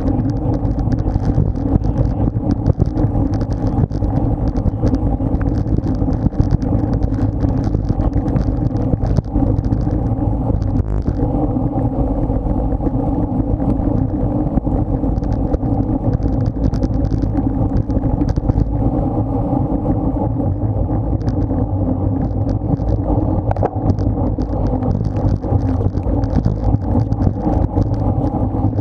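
Steady wind rush and road rumble on an action camera's microphone on a moving road bike, with a flickering hiss in the highs.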